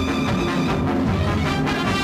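Background music with sustained chords, laid over the footage.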